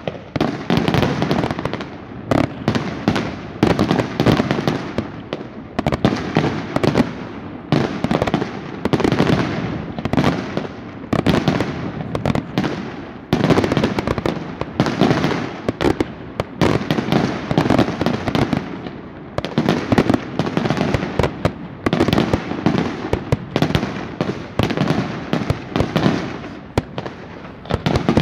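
Daytime aerial fireworks display: a continuous rapid barrage of sharp bangs and cracks as shells burst overhead, coming in dense waves every second or two with no pause.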